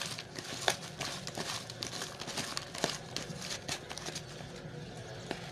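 Hands rubbing and tossing salted, cut bitter gourd pieces in a plastic bowl: irregular crinkly rustling with small clicks, busier in the first few seconds and thinning out near the end. The gourd is being salted before frying.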